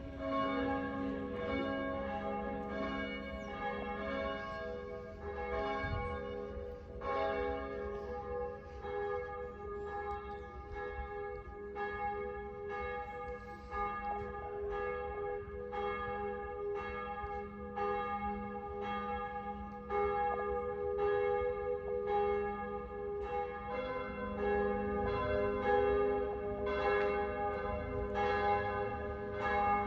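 Church bells ringing, one strike after another in a steady run, each note ringing on into the next.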